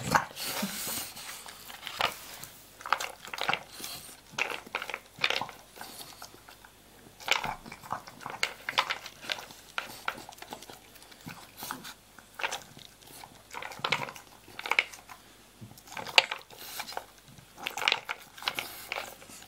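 Dog crunching dry kibble in irregular bursts, picking the pieces out from between the knobs of a slow-feeder bowl.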